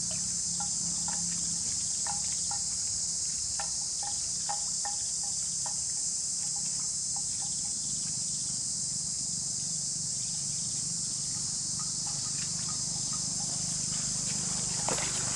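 Steady high-pitched insect chorus, with scattered short soft clicks from a water buffalo grazing close by.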